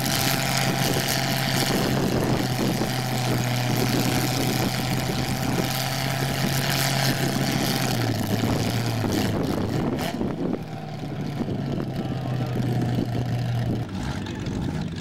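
Mud-bog truck's engine held at high, steady revs in a deep mud pit, with a hiss of churning mud and tires over it. The engine pitch steps down about eight seconds in, and the hiss thins out around ten seconds.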